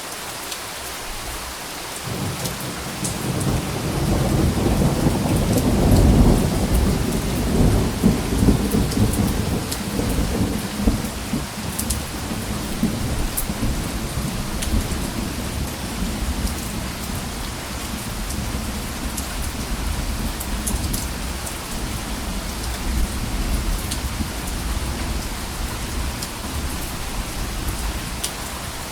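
Steady rain falling, with a long roll of thunder that rises about two seconds in, peaks around six seconds, and slowly fades away under the rain.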